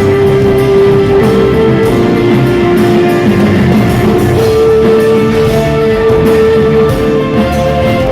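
Progressive rock band playing an instrumental passage: a guitar holds long notes over bass and drums.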